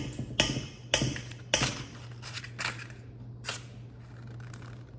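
Kitchen utensils and dishes being handled: a series of sharp clicks and knocks, loudest in the first two seconds and sparser after, over a steady low hum.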